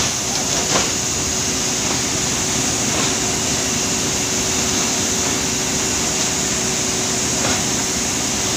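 Steady, loud machinery noise of a palm oil mill's threshing station, with the horizontal chain scraper conveyor running, and a steady hum through it. A few short knocks come in the first second.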